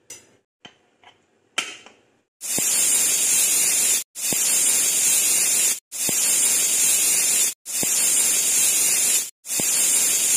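Pressure cooker whistling: the weight valve on the lid lets out steam in a run of loud hissing whistles, each about a second and a half long with short breaks between them. These are the counted whistles that mark the cooker coming up to pressure as rice and moong dal cook. A few faint clicks come before the first whistle.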